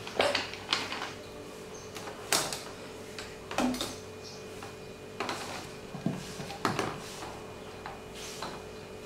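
Irregular clicks and crackles of a plastic soda bottle being handled, with its screw cap being twisted open.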